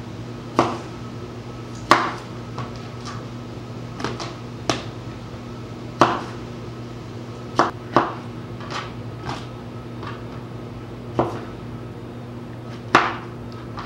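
Kitchen knife slicing through tomatoes and knocking on a cutting board, about a dozen separate knocks at irregular intervals, over a steady low hum.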